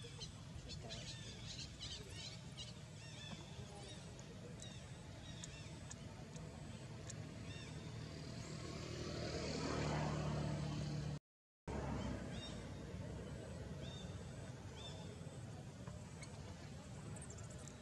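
Outdoor background ambience: faint, scattered high chirps over a steady low hum. A low rumbling noise swells for a couple of seconds about ten seconds in and fades, and the sound cuts out for a moment just after.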